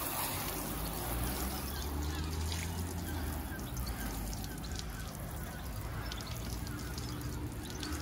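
Garden hose spray gun on shower setting spraying water over a caravan's fibreglass front panel and Perspex windows: a steady hiss and spatter of water on the panels.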